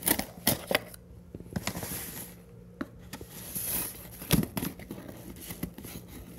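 Cardboard shipping box being opened: a blade slicing and tearing through the packing tape on the seam, with scraping and several sharp knocks as the box is handled.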